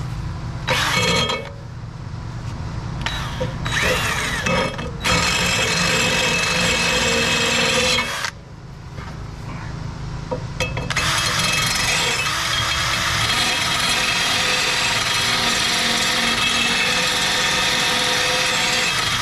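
Electric drill spinning a bevelled grinding stone against the edge of a lawnmower blade still on the mower, grinding the edge down: a few short runs first, then a steady run of grinding from a little past halfway. The drill turns the stone slower than the owner thinks it needs.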